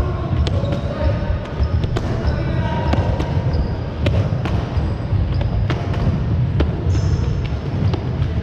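Bare-foot taekwondo kicks slapping against handheld kick paddles, many short sharp smacks at irregular intervals from several pairs at once, over a constant low thudding and faint voices.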